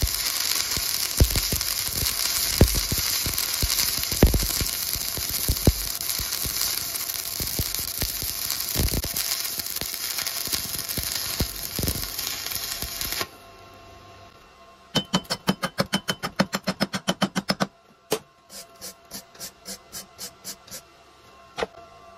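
Stick welding arc crackling and sizzling steadily, with occasional louder pops, until the arc is broken about 13 seconds in. After a short pause comes a fast run of short regular pulses, then a slower run.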